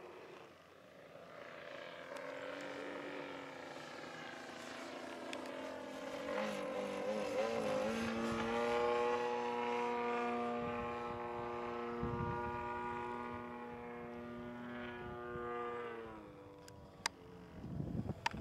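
Graupner Extra 300 model plane's AGM-30 30 cc single-cylinder gasoline engine running in flight during its break-in, a buzzing drone that wavers in pitch as the plane manoeuvres, then holds a steady pitch. About three-quarters of the way through it fades away.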